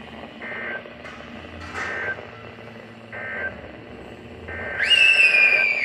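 Weather radio sending EAS SAME data bursts: three short, shrill two-tone digital screeches about 1.4 s apart, with a fourth starting near the end. These data bursts frame an emergency alert message. Near the end a louder alert tone with overtones rises sharply in pitch and then holds.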